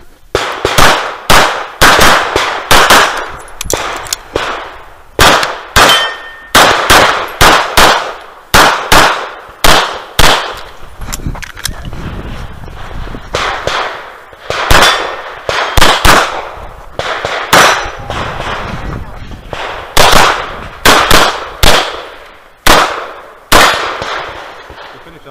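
Handgun fired rapidly at the shooter's own position, dozens of shots mostly in quick pairs, with a few short pauses between strings.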